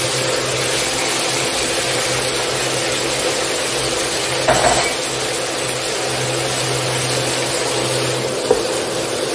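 Chicken and onion sizzling steadily in a nonstick frying pan with freshly added sauce, over a steady low hum. A short louder scrape or knock comes about halfway through and a sharp click near the end.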